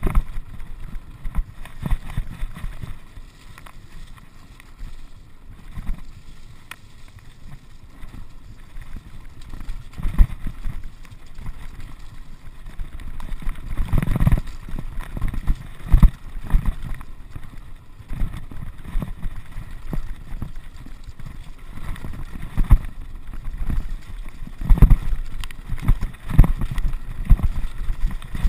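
Mountain bike rattling and thudding over a rough, stony, muddy track, with irregular knocks from the frame and wheels and wind buffeting the camera microphone. The hardest knocks come about halfway through and again near the end.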